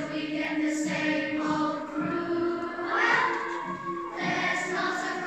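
A children's choir singing a song together, with held notes.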